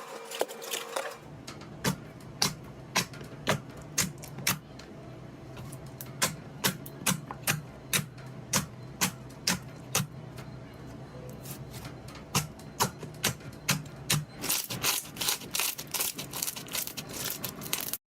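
Slime being pressed and worked, giving sharp popping clicks at about two a second that come faster and denser near the end, over a faint steady hum.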